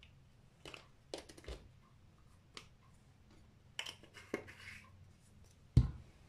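Small clicks and taps of spice jars being handled, with a louder thump near the end as a jar is set down on the tabletop.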